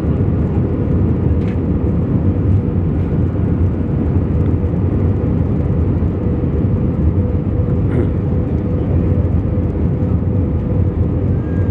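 Airbus A320 cabin noise on approach, heard from a seat over the wing: a steady low rumble of the engines and the rushing air, with a faint steady hum riding on top.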